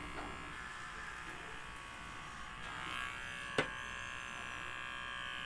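Electric hair clipper running steadily as it shaves hair off a head, with one sharp click about three and a half seconds in.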